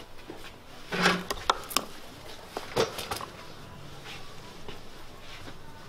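A few knocks and clicks from parts being handled on a wooden sewing-table top, a cluster about a second in and another near three seconds in.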